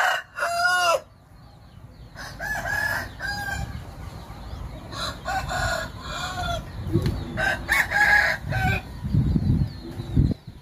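Several gamecocks crowing one after another, with clucking between the crows. A low rumbling noise sits under the calls in the second half.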